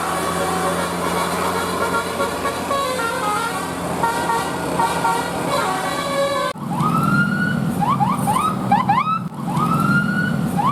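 Multi-tone bus 'telolet' horn playing a tune of held notes that change pitch in steps. About six and a half seconds in, it cuts abruptly to a siren-like pattern over a low hum: a long rising whoop followed by several short rising chirps, which then repeats.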